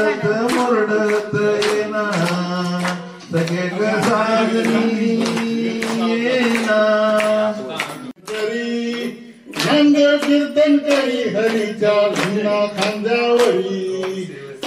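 A man singing a song into a handheld microphone while the group claps along in time, with a short break in the singing about eight seconds in.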